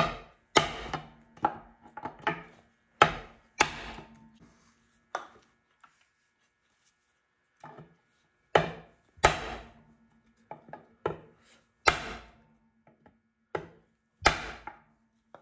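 Hammer blows on a nylon drift bar, driving a wet cylinder liner out of a Continental Z134 engine block: about fifteen sharp knocks, each with a short ring, in irregular groups with a pause of about two seconds near the middle. The liner is slow to come free.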